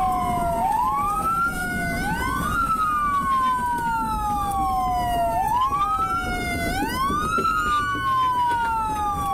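Two police sirens wailing out of step with each other. Each rises quickly and then falls slowly over about four to five seconds, over the low rumble of the patrol car on the road.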